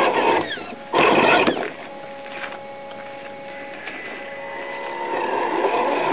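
Small electric motors and gearboxes of radio-controlled rock crawlers whirring in bursts as they crawl over rocks. The whirring is loud at the start and again briefly about a second in, quieter with a faint steady whine through the middle, and louder again near the end.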